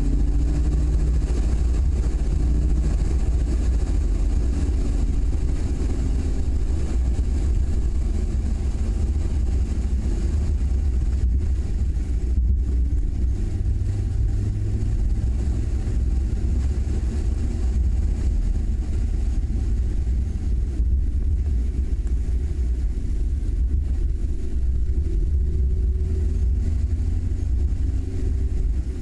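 Car driving along at a steady pace: a steady low rumble of engine and road noise, with a faint engine note that rises and falls only a little.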